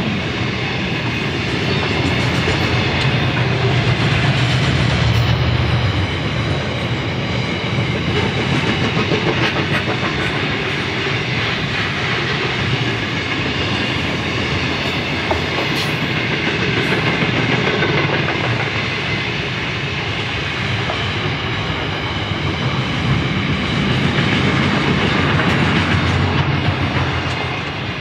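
Container freight train's wagons rolling past: the steady noise of wheels running on the rails, swelling and easing slightly as the wagons go by.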